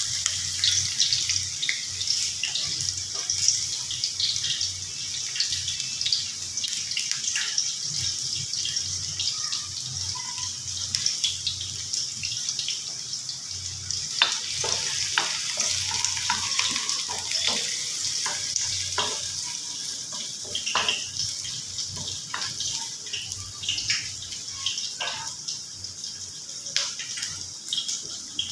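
Sliced onions sizzling in hot oil: a steady high hiss with scattered crackles and pops, the pops coming thicker in the second half.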